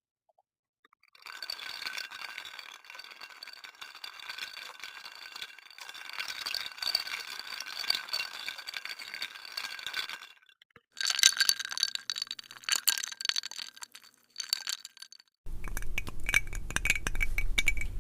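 Ice cubes clinking and rattling against glass in several separate takes, with short silences between them. The first is a long run of light, dense clinking, the second a louder, sharper clatter, and the last, starting near the end, is rattling over a steady low hum.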